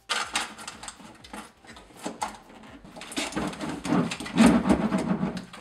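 Crinkling and rustling of plastic film and foil-faced butyl sound-deadening mat being handled and pressed onto a truck door's inner sheet metal. The crackles are dense and irregular and grow loudest in the second half.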